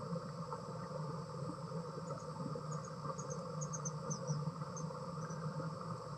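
Outdoor ambience: a steady low hum, with about a dozen faint, short, high-pitched chirps, some falling slightly, between about two and five seconds in.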